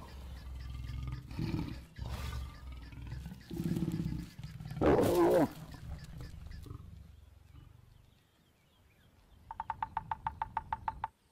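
Lions growling during mating, with one loud snarl about five seconds in. Near the end a woodpecker drums a fast, even roll of about a dozen strikes on a dead tree trunk.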